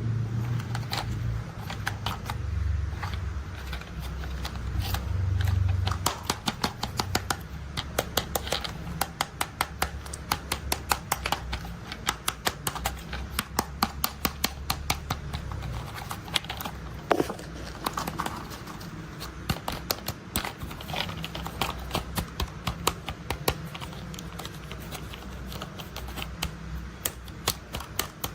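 Rapid, irregular sharp clicks and ticks, several a second, like small hard parts being handled. Under them at first is a low steady rumble that fades out about six seconds in.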